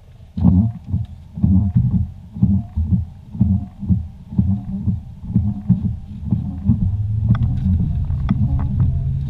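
Windshield wipers sweeping a dusty windshield wet with washer fluid: a rhythmic low beat from the blades roughly every half second, with faint squeaks of rubber dragging on the glass. From about seven seconds in the beat gives way to a steady engine hum with a few sharp clicks.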